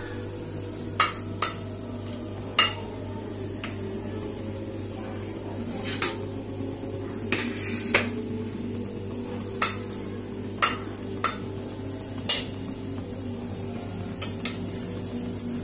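Steel spoon knocking and scraping against the inside of an aluminium pressure cooker while stirring in hot oil: sharp, irregular clinks about once a second, over a steady low hum.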